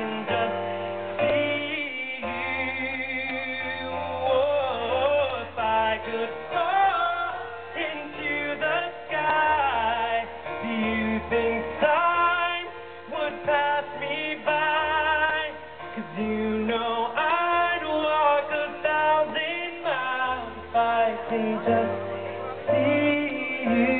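Live pop performance: a male singer holds long notes and sings wavering vocal runs without clear words over keyboard accompaniment, heard through the PA from within an outdoor crowd.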